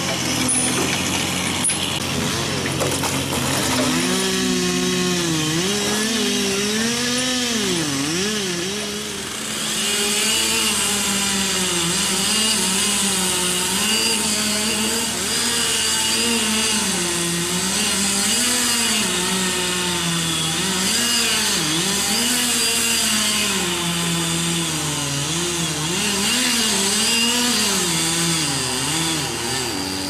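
Two-stroke chainsaw engines running and cutting through wood, the engine pitch rising and falling with the cut throughout, with a steady hiss of sawing.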